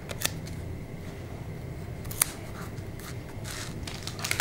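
Fingers handling a paper sticker sheet: a few small clicks, one sharper tick about two seconds in, and a light paper rustle near the end.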